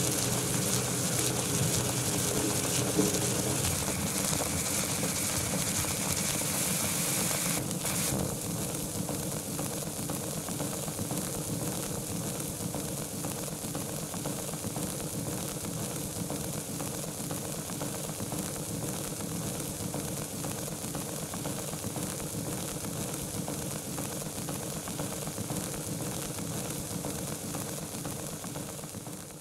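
Surface noise of an Edison Kinetophone phonograph cylinder recording, a steady scratchy hiss and crackle with no speech. A click about eight seconds in, after which the noise is a little quieter.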